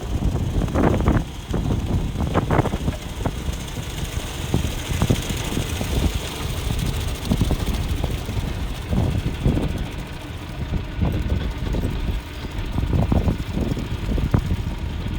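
New Holland T4.110F tractor's diesel engine running steadily under load while it mows weeds, with wind buffeting the microphone in irregular gusts.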